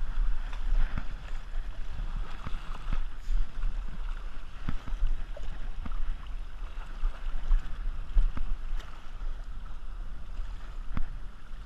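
Wind buffeting a body-worn action camera's microphone in a gusty low rumble, over water splashing and sloshing as someone wades through shallow water.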